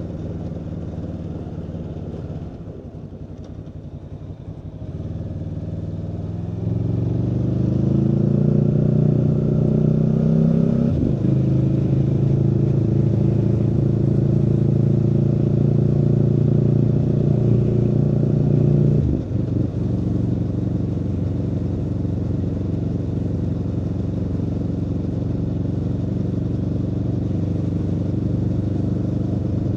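Aprilia Tuono V4's V4 engine heard from on board: after a few seconds of lighter running it pulls hard with rising pitch, briefly breaks about eleven seconds in, holds a loud steady note, then eases back sharply near the nineteen-second mark and runs steadily.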